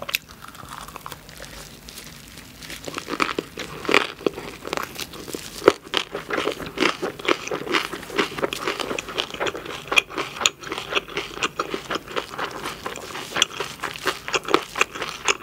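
Close-miked chewing of a mouthful of whole samgyeopsal gimbap (seaweed-wrapped rice roll with pork belly, cucumber, green onion and green chili): a steady run of wet mouth sounds and crisp crunches, sparser for the first couple of seconds.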